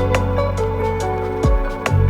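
Instrumental background music: sustained pitched notes over a low bass line, with a few sharp struck notes.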